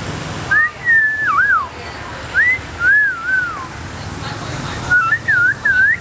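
Common hill myna whistling three short phrases of clear notes that swoop up and down in pitch, each phrase about a second long.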